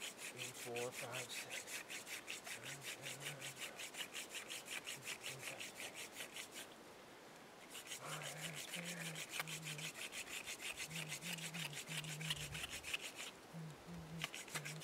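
Hand-drill friction fire: a wooden spindle twisted rapidly back and forth in a cedar hearth board, making a fast rhythmic rasping. It stops briefly twice, about seven and thirteen seconds in. The spindle is sticky with sap, and the drilling is building heat toward a coal.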